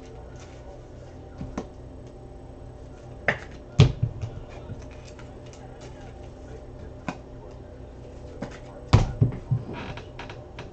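Hands handling trading-card boxes and packs on a tabletop: scattered clicks and knocks, with two louder knocks about four and nine seconds in, over a steady low hum.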